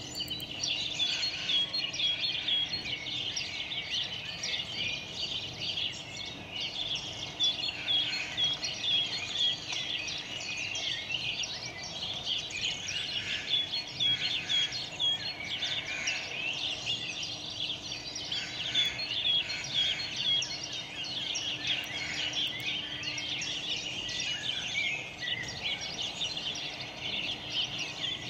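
Many small birds chirping and singing at once, a dense continuous chorus of quick, high chirps.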